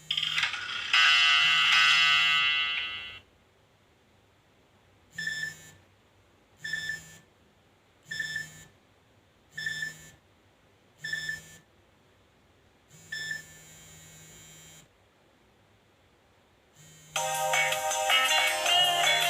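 Nokia E63 ringtones and alert tones played one after another: a short bright musical tone, then a short tone repeated six times about every second and a half, a fainter held tone, and a new melodic ringtone starting near the end.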